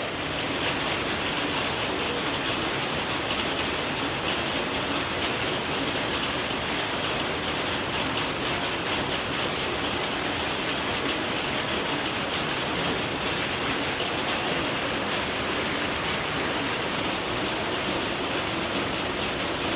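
Machinery running steadily with a dense, rapid clatter. The sound brightens about five seconds in.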